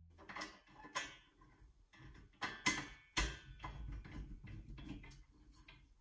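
Irregular metallic clicks and taps from a screwdriver tightening the bolt that fastens a 3D printer's diagonal strengthening bar to its aluminium extrusion frame, with several sharper knocks in the first three seconds.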